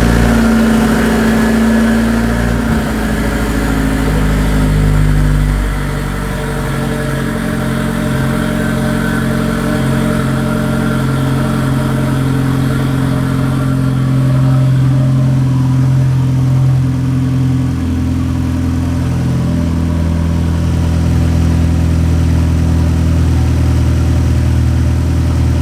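Turbocharged Mazda Miata four-cylinder engine idling loudly just after its first start, exhausting through an open downpipe with no catalytic converter, left running to burp air from the freshly filled coolant system. The idle drops lower about six seconds in and shifts again around eighteen seconds in.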